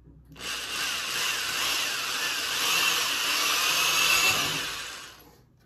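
Corded electric drill running under load as a small bit bores a pilot screw hole through a proton pack replica's ion arm, the hole kept undersized so the screws will cut their own threads. The motor starts about a quarter second in, runs with a wavering whine, then winds down and stops near the end.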